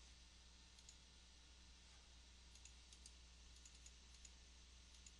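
Near silence with a few faint computer mouse clicks over a steady low hum.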